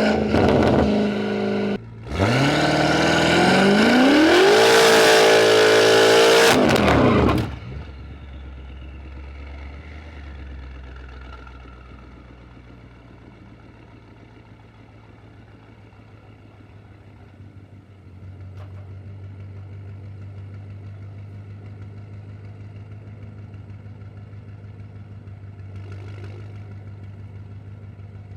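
Tuned BMW M5's twin-turbo V8 running at full throttle, its pitch climbing steeply for about five seconds after a brief dip near the start. About seven seconds in it lifts off sharply, then runs low and steady at low revs.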